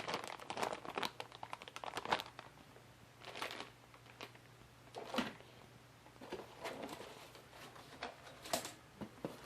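Plastic packaging crinkling and tearing as an LCD kit's package is opened and handled. There is a dense run of crackles at first, then scattered single crinkles.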